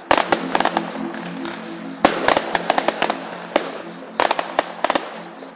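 Aerial firework shells bursting in clusters of sharp bangs and crackles, in several quick rounds, with music playing beneath.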